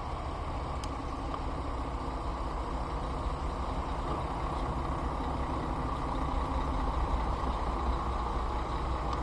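Steady low mechanical rumble, like an engine or motor running at idle, with no strikes or changes.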